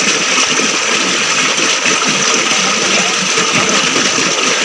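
A small stream running over rocks, a steady rush of water.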